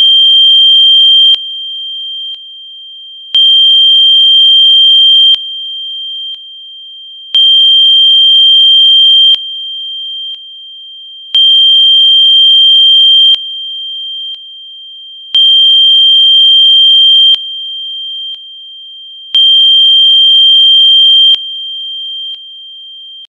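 Electronically generated Rife-frequency sine tone: a single steady high pitch that swells louder for about two seconds every four seconds, then steps down quieter, six times over.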